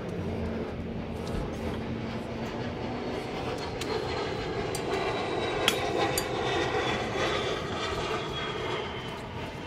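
A distant engine drone with faint gliding tones swells to a peak about halfway through and eases off near the end. Over it come a few sharp metal clicks from a hydraulic shop press being worked by hand on a wheel-bearing knuckle.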